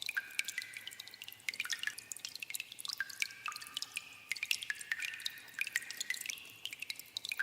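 Water dripping in a cave: many drops falling at an irregular pace, several a second, each a sharp plink, many with a short ringing note after it.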